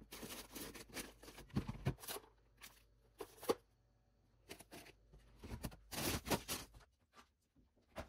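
Handling noises: short, irregular rustles and crinkles with a few light clicks, densest around six seconds in.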